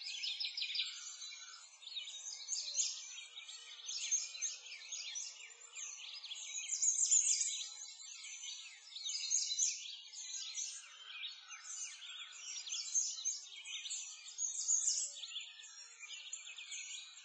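Dense chorus of many small songbirds chirping and twittering without pause, all high-pitched, swelling and fading every second or two.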